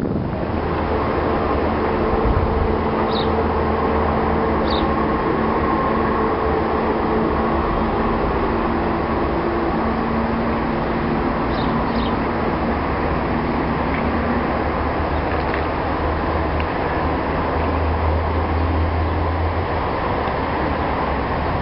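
Steady road-traffic noise with low engine hums that come and go, and a few short high chirps over it.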